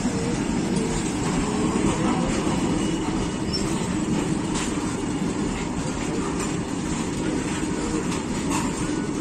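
A loaded goods train's open-top freight wagons roll past close by: a steady rumble of steel wheels on rail, with a faint wavering wheel squeal near the start and a few sharp clicks as wheels pass over rail joints.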